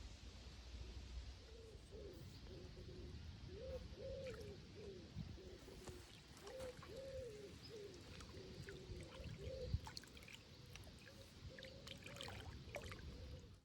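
A pigeon cooing over and over in soft, arching phrases, with scattered light clicks toward the end.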